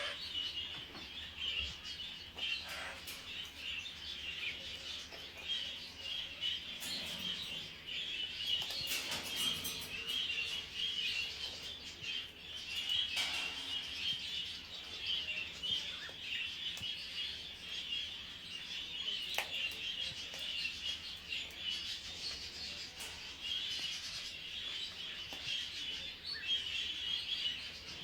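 Steady, dense chirping of many small birds, with a few sharp cracks and crunches scattered through it as a blue-and-gold macaw breaks open almond shells with its beak.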